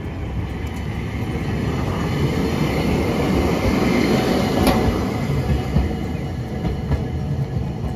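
Hiroden 700-series streetcar no. 711 moving off and rolling past close by, its wheels running on the track. The rumble builds to its loudest about halfway through, with a sharp click near the peak, then eases as the tram moves away.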